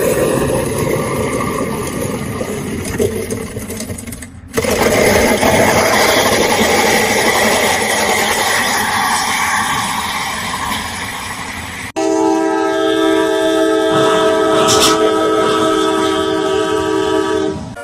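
Loud rushing, rumbling noise, broken by two abrupt cuts. After the second cut, a horn holds a steady chord of several tones for about five seconds, ending just before the close.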